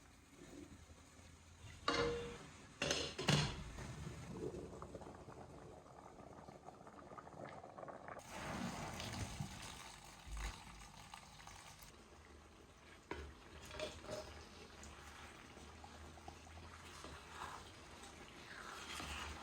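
Kitchen cooking sounds: sharp clinks of utensils about two and three seconds in, then a steady hiss with liquid sounds and a few scattered knocks.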